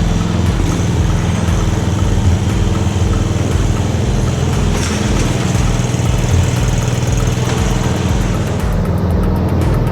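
Craftsman riding lawn mower's engine running steadily.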